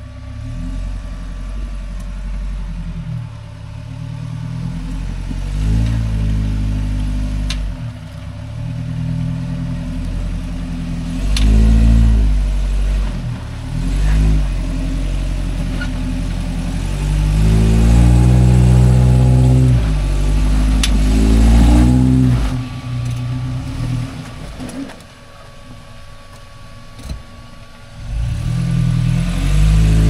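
A 1985 Toyota rock crawler's engine revs up and drops back again and again as the truck climbs over rock ledges, with a few sharp clicks in between.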